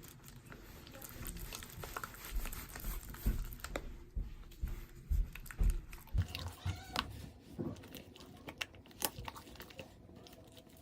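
Glue-and-detergent slime being mixed in a bowl, irregular wet squelches and sticky clicks as the activator binds the glue.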